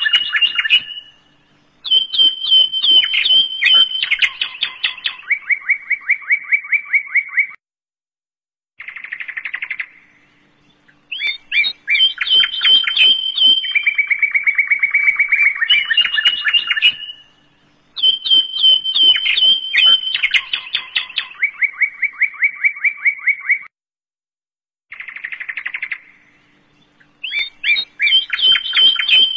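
Birdsong of chirps and long rapid trills, in phrases separated by short pauses. The same sequence repeats about every sixteen seconds, as in a looped birdsong recording.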